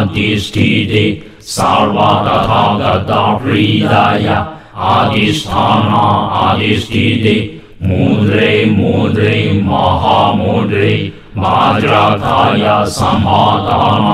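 A voice chanting a healing mantra in a slow melodic line, in phrases of about three seconds with short pauses between them.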